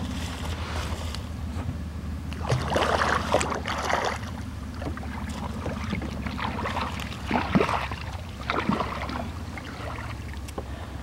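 Water splashing and sloshing in short bursts around a kayak, a few times, over a steady low rumble.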